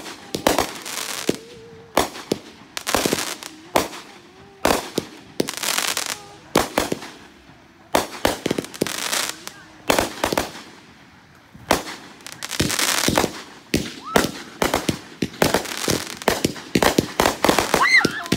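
Aerial fireworks bursting overhead: a string of sharp bangs with crackling sprays between them, coming faster and denser over the last few seconds.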